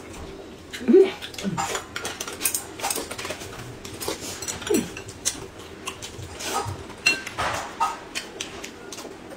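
Eating sounds: chopsticks clicking against a ceramic noodle bowl, with noodle slurping and chewing. There are many small clicks, and a brief falling tone about a second in and again near five seconds.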